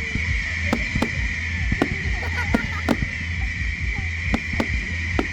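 Fireworks going off: about ten sharp, irregular bangs over a steady hiss and low rumble.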